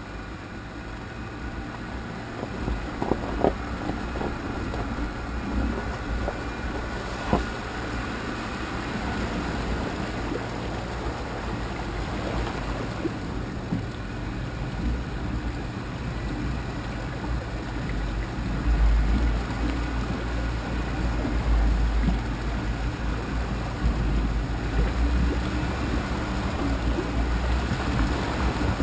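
An off-road vehicle's engine runs as it drives over rough gravel and into a muddy water crossing, with water washing and sloshing around it and wind on the microphone. There are a few sharp knocks about three and seven seconds in. The engine and water grow louder through the second half.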